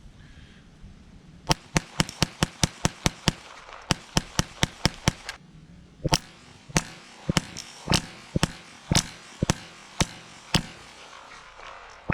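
Ruger Charger .22 LR pistol firing: a fast string of sharp shots begins about a second and a half in, a second quick string follows, then slower shots about two a second run on.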